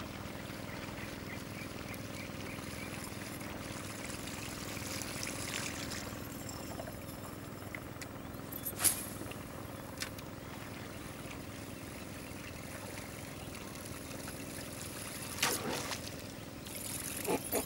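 Open-air sound from a small boat on a lake: a steady low hum with faint hiss, broken by a sharp click about nine seconds in, a lighter click a second later, and short splashy swishes near the end.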